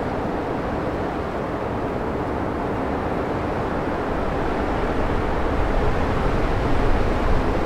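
Steady wind with a low rumble of wind buffeting the microphone, growing somewhat stronger in the second half.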